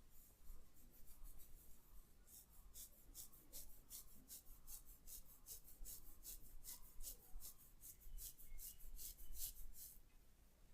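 Faint rhythmic rubbing of fingers through hair and scalp during a head massage: quick, even, scratchy strokes, about three or four a second, starting about two seconds in and stopping near the end.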